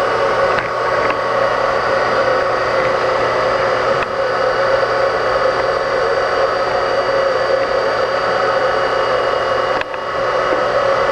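Brown & Sharpe 618 Micromaster surface grinder running under power: a steady machine hum and whine from the wheel-head motor and powered table traverse, with a brief dip near the end.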